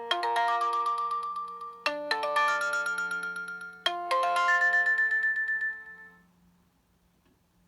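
Nokia 6230i polyphonic ringtone playing a chime-like melody in phrases about every two seconds, each starting sharply and decaying. It dies away about six seconds in.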